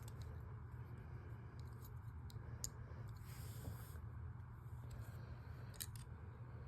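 Faint scattered clicks and soft rustling of a plastic action figure being handled as its joints are moved, over a low steady hum.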